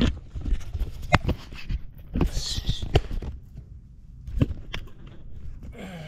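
A handful of sharp knocks and taps from handling gear and setting the camera down, with a short hiss a little past two seconds in.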